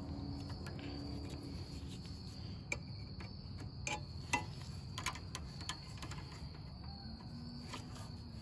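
Crickets chirping steadily in the background, with a few short, light clicks and knocks scattered through it.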